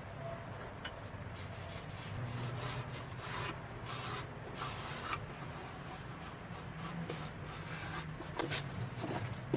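Rubbing by hand across the surface of a wooden cross-cut log slab: an irregular series of short scrubbing strokes.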